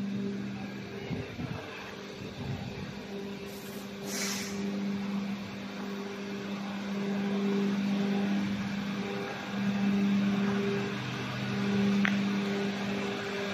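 Factory machinery humming: a steady low drone that swells and fades every second or two, with a brief hiss about four seconds in.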